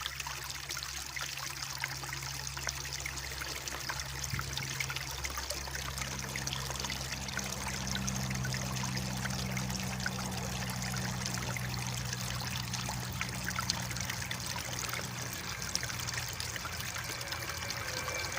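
Mountain stream running and babbling steadily over stones, with a faint steady low hum underneath through much of the stretch.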